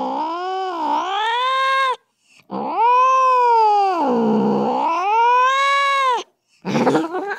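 A cat's long drawn-out yowls: a first yowl ending about two seconds in, then a second one over three seconds long that sinks low in pitch and rises again before cutting off, and a short rough call near the end.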